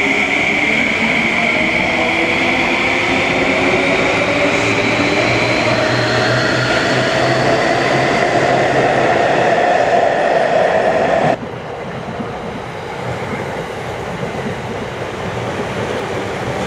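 Yamanote Line electric train pulling out of the station, its traction motors giving a whine that rises in pitch as it gathers speed, over wheel and rail noise. About two-thirds of the way through it cuts off suddenly to the quieter, even rumble of a train running past on the tracks.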